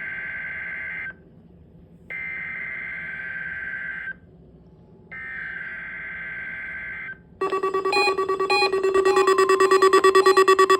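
Emergency Alert System SAME header: three one-second bursts of screeching digital data tones, a second apart, marking the start of a weekly test alert. About seven seconds in, a louder pulsing electronic alert tone begins.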